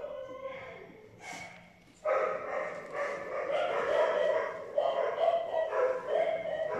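Dog whining and yipping in high-pitched cries, faint at first and then loud and almost unbroken from about two seconds in, with a short hiss about a second in.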